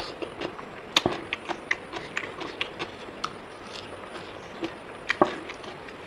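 Eating sounds of rice and pork: irregular wet clicks and smacks of chewing and mouth noises, with two sharper knocks, one about a second in and one near the end.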